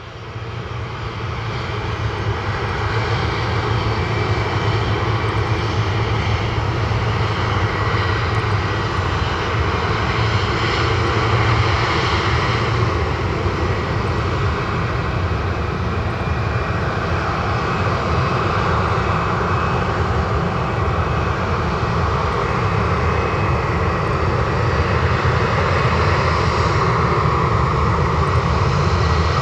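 Jet engines of a Japan Airlines Boeing 737 running as the airliner rolls along the runway. The sound is a steady rush with a thin whine on top, swelling over the first few seconds and then holding level.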